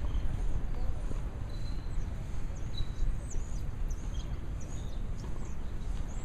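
Open-air ambience: a steady low rumble with small birds chirping now and then, short high-pitched calls scattered throughout.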